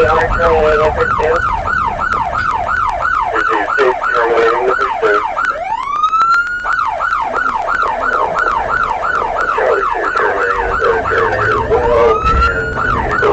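Police car electronic siren in fast yelp mode, its pitch sweeping up and down about three and a half times a second. Twice it breaks into one slow rising wail before the yelp resumes.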